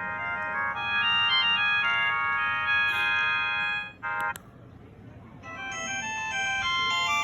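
Realme Dizo Star 400 feature phone playing its built-in ringtones through its speaker: a synthesized melody of stepped notes runs for about four seconds and cuts off with a click. A different ringtone melody starts about a second later.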